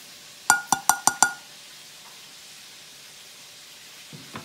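A ceramic dinner plate tapped five times in quick succession, each tap ringing briefly, to knock the last of the spices off it into the flour bag.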